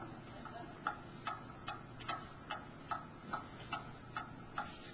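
Pendulum wall clock ticking steadily, a little over two ticks a second.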